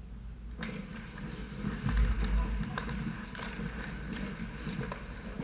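Ice hockey play heard close up at the goal: skate blades scraping the ice and scattered sharp clacks of sticks and puck, with a heavy low thud about two seconds in.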